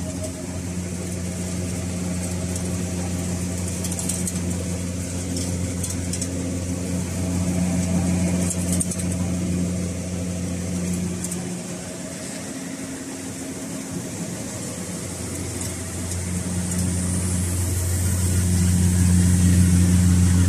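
25SC seed-cleaning machine running as it cleans seed, giving a steady machine hum. The hum drops a little past the middle and grows louder again toward the end.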